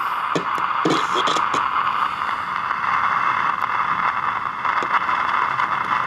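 Signal tracer's speaker giving out a steady static hiss as its probe is held on a transistor radio's circuit board. A few short clicks come in the first second and a half as the probe tip touches the components.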